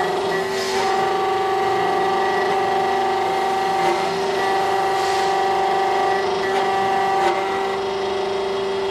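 SEC E9 automatic key-cutting machine milling the cuts into a new Schlage key blank: the cutter runs with a steady whine over a grinding hiss, its pitch dipping briefly a few times as the cut moves along the blade. It stops at the very end.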